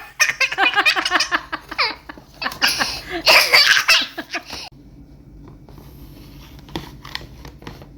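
A small child laughing in quick bursts for about four and a half seconds, then a few light taps.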